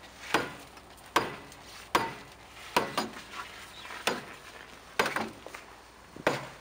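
Sharp knocks, about one a second, each with a short metallic ring: someone striking at the ice-crusted rear axle of a truck from underneath.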